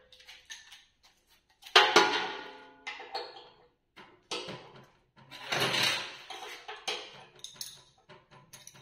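Steel tools clinking and knocking against metal while a spanner undoes the bolts on a fan motor mount. The knocks come irregularly, the loudest about two seconds in with a short metallic ring, and another cluster comes around six seconds.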